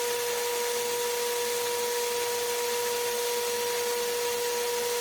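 Power tool running at a steady speed, a constant whine over an even hiss, as it cuts a small piece of metal stock into shavings.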